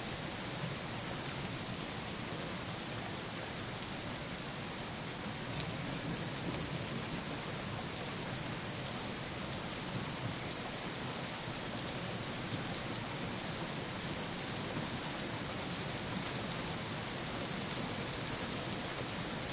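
Steady rain falling, a dense even hiss with no breaks, with a low rumble of thunder underneath.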